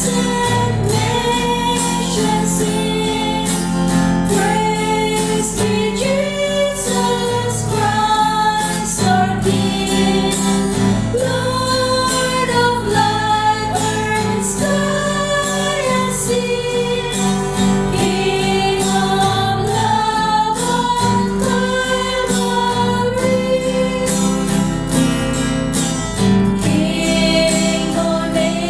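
Voices singing a Christian hymn with guitar accompaniment, long held notes moving in slow steps.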